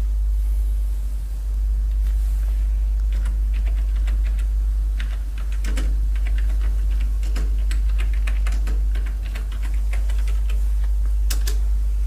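Keys typed on a keyboard: a quick, irregular run of clicks starting about three seconds in and lasting most of the rest, over a steady low hum.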